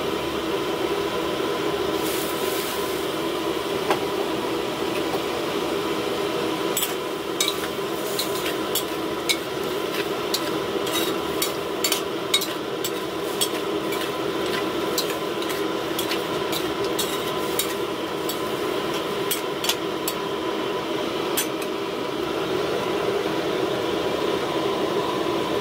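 Metal spatula scraping and knocking against a metal wok during stir-frying: a run of irregular sharp clicks through the middle, over a steady kitchen hum.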